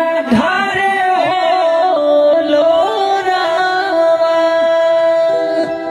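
A man singing a rustic Bhojpuri wedding song (vivah geet) in a slow, ornamented line that bends and wavers, then holds one long note near the end.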